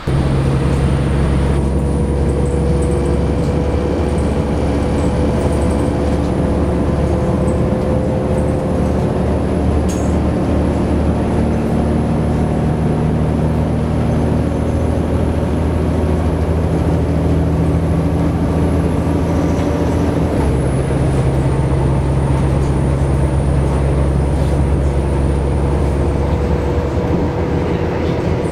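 A train running at speed, heard from on board: a steady, loud rumble and hum with a faint high whine that drops slightly in pitch about 20 seconds in.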